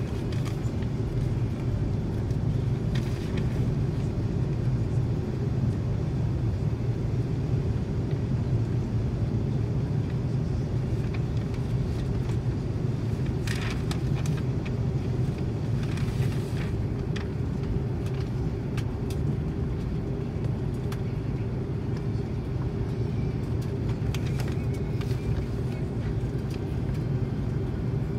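Cabin noise inside an Airbus A330-300 taxiing: a steady low rumble from its Rolls-Royce Trent 700 engines at taxi power and the aircraft rolling along the taxiway. A few faint clicks and knocks come through the cabin now and then.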